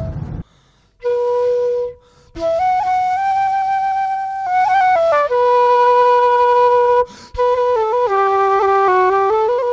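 Background music: a slow solo melody of long held notes, broken by short pauses, with quicker notes near the end.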